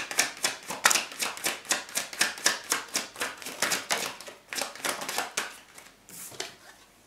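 A tarot deck being shuffled by hand: a quick patter of cards flicking and tapping against each other, about six a second, which tapers off about five seconds in.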